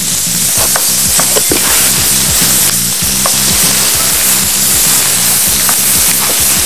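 Diced zucchini, purple sweet potato and onion sizzling in olive oil in a frying pan, stirred with a wooden spatula, with scattered light scrapes and taps of the spatula.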